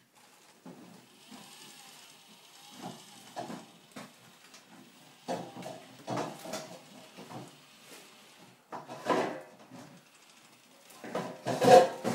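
Radio-controlled model crawler loader (Liebherr 623) driving its tracks and working its arm on a wooden tabletop: electric motors whirring and the tracks clattering in irregular bursts, loudest near the end.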